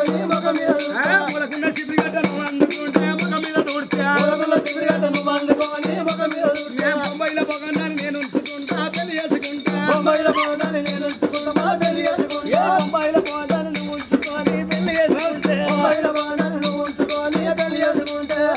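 Oggu Katha folk music: a steady drum beat with fast, continuous rattling percussion over a held, wavering melodic line.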